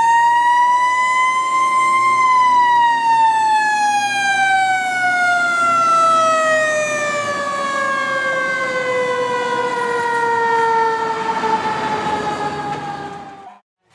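Fire engine siren winding up to its peak about two seconds in, then falling slowly in one long wail that cuts off just before the end.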